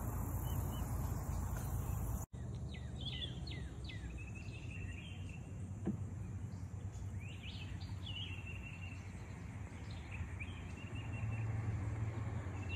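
A low rushing noise that cuts off abruptly about two seconds in, then birds calling in the swamp: repeated quick falling chirps and a few short held whistles over a low steady hum.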